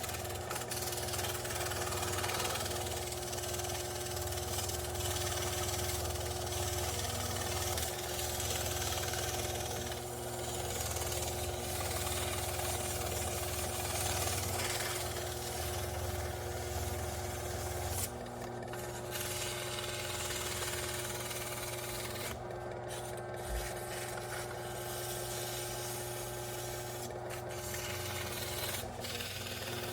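Box fan's electric motor running with a steady hum and a rattling mechanical noise; the deep part of the sound drops away about eighteen seconds in.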